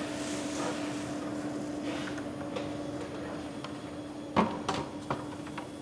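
Green coffee beans pouring into the hopper of a running drum coffee roaster, a brief rush at the start, over the roaster's steady hum. A few sharp knocks and clatters come about four seconds in.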